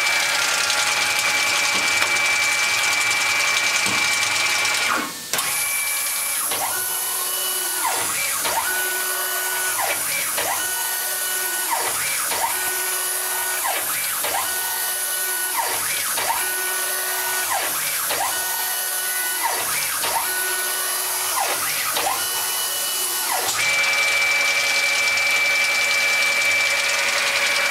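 USI Prism Coat 100 conformal coating machine running. A steady high motor whine gives way about five seconds in to a high hiss and the coating head's gantry motors whining up and down in repeated strokes about once a second as the head works across a circuit board. The steady whine returns near the end.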